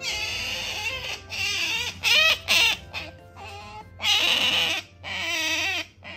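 Asian small-clawed otter giving a run of high, wavering squealing calls, in two bursts with a short pause about three seconds in, over background music.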